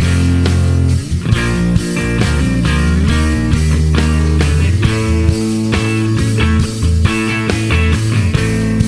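Background rock music with electric guitar and bass.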